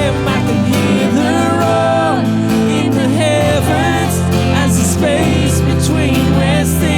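Worship band playing a contemporary worship song, with guitar and a sung or vocalised melody over steady bass notes.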